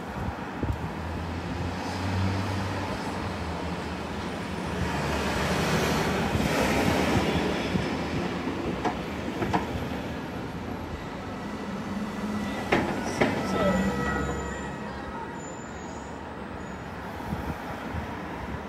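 City street traffic heard from inside a stationary car, a steady rumble that swells as a vehicle passes about six seconds in. A few sharp clicks and a brief high squeal come around thirteen seconds.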